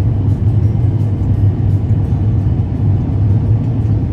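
Steady low rumble of an airliner heard from inside the cabin.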